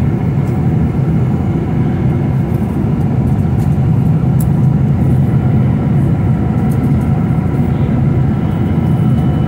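Steady drone of an airliner in flight heard from inside the passenger cabin: engine and airflow noise, heaviest in the low range, with faint steady tones over it. A faint high steady tone joins near the end.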